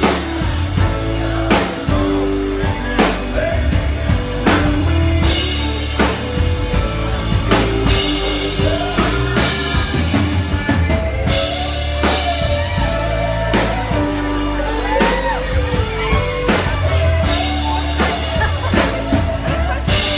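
Live country band playing a song with drum kit and guitars, with a male lead voice singing over it.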